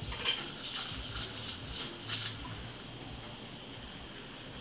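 A series of light clinks and taps from café work at an espresso counter, about six short ones in the first two and a half seconds, then quieter.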